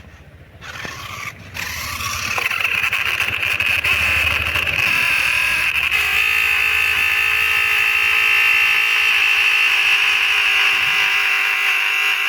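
Small electric motor and gearbox of a toy RC off-road car whirring. It starts up about two seconds in and then runs as a steady high whine.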